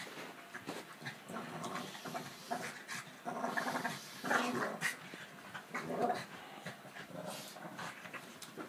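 Two dogs, a black Labrador and a Boston terrier, play-fighting: growls and panting come in irregular bursts, with small clicks and scuffles from their mouths and paws.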